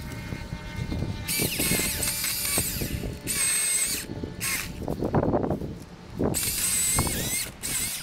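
Milwaukee M18 Fuel cordless chainsaw cutting cedar branches in several bursts of high electric whine, the longest about a second and a half. Brush crackles and branches crash in the gap between bursts around the middle.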